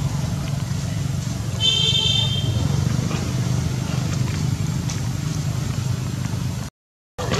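Steady low engine rumble, like traffic or a motor running nearby. About two seconds in, a short high-pitched squeal cuts through. Near the end the sound drops out completely for half a second.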